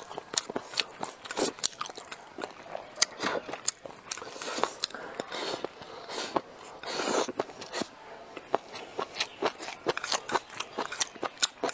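Close-up mouth sounds of eating a mouthful of rice with chopped pickled sour long beans: steady chewing and crunching, made of many short sharp crunches, with a couple of longer, noisier stretches about five and seven seconds in.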